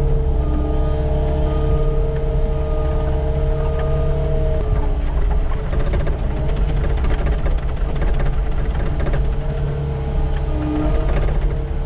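Diesel engine of a Cat 257D skid steer running steadily, with a held whine over it in the first half. Light clicks and rattles come in from about halfway.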